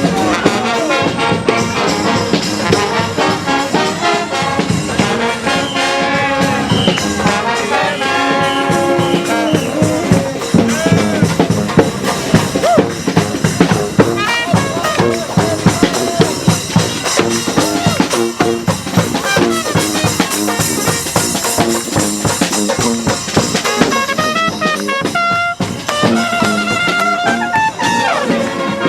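Street brass band playing: trumpets and trombones over drums.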